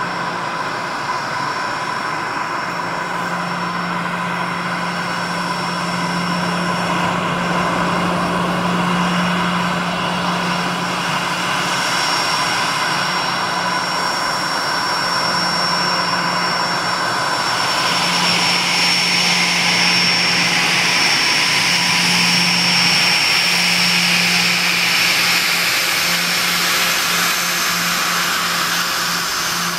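Bombardier Global 6000 business jet's Rolls-Royce BR710 turbofans at taxi power, a steady high whine over a rushing hiss. About two thirds of the way in the rushing grows louder as the jet turns and passes close.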